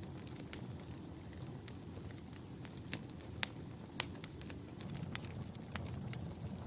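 Wood fire burning in a fireplace: a steady low rumble of flames with irregular sharp crackles and pops, two of them louder, near the middle.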